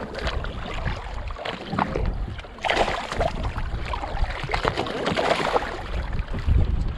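Seawater splashing and sloshing around a hand holding a fish in the water over the side of a boat, in irregular bursts, the loudest about three seconds in, over a steady low rumble of wind on the microphone.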